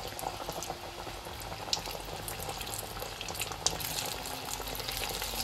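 Panko-crumbed potato and sausage croquettes deep-frying in hot oil in a stainless steel pot, freshly dropped in: a steady bubbling sizzle with scattered crackles, a few sharper pops among them.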